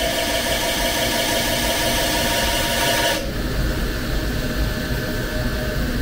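Lehigh CNC lathe facing an aluminium-alloy wheel: the spindle turning and the tool cutting, with a steady hiss and several steady tones. About halfway the high hiss cuts off suddenly as the cut ends, and the spindle runs on with a lower rumble, slowing down.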